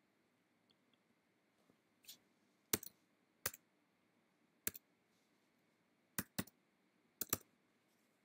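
Computer keyboard keys and mouse buttons clicking: a scattering of sharp single taps and close pairs about a second apart as a short word is typed.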